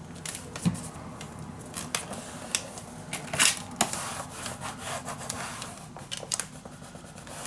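Paper and craft-table handling noise while paper is glued: scattered light clicks, taps and rustles, with a sharper tap about three and a half seconds in.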